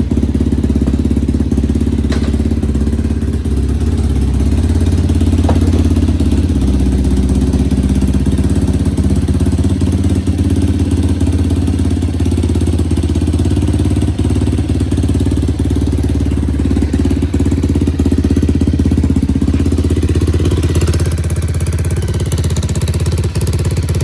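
Yamaha TT-R230's single-cylinder four-stroke engine idling steadily through a Big Gun full-system aftermarket exhaust, just after its first cold start following the exhaust swap.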